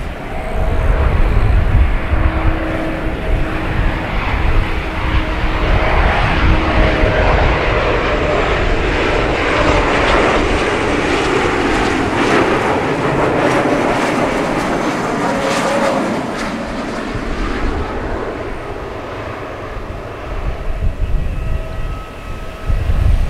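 Twin turbofan engines of a J-AIR Embraer E190 on final approach, a steady jet noise that swells as the aircraft passes close by around the middle and eases off as it descends toward the runway.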